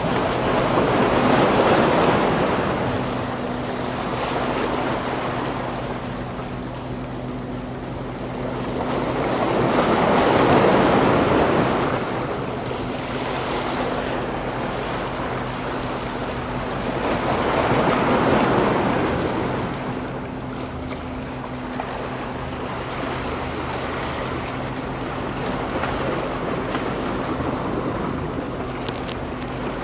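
Sea waves washing against the rocks of a breakwater, surging and fading about every eight seconds, over a steady low hum.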